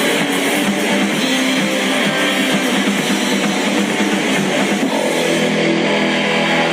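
Rock music led by guitar, with a steady low drone joining about five seconds in.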